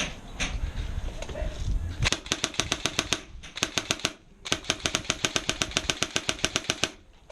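Airsoft gun firing on full auto: three bursts of rapid, evenly spaced shots at about ten a second, the last and longest lasting over two seconds.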